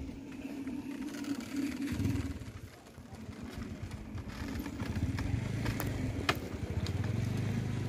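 A motor engine running steadily, its low hum coming up about two seconds in, with a few sharp clicks in the second half.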